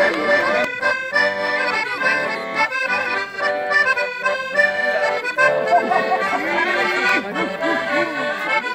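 Two button accordions playing a dance tune together as a duet, a melody over steady rhythmic chords.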